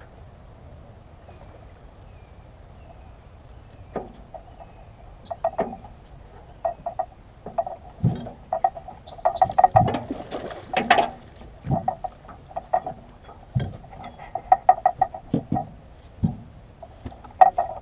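Irregular knocks and splashes in clusters as a fish on a bowfishing line is pulled in to the side of a metal jon boat. They start about four seconds in, and the loudest burst comes around ten to eleven seconds in.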